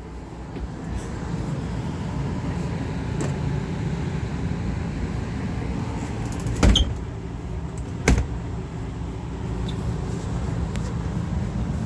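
Two sharp knocks of a camper's cabinet doors being shut, about a second and a half apart, over a steady low rumble.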